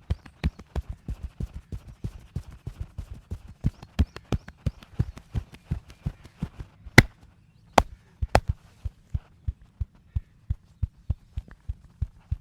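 Rapid, rhythmic percussion massage, wooden sticks striking the body at about five or six dull thuds a second. About halfway through the thuds pause for three sharp, louder cracks, then the even tapping resumes.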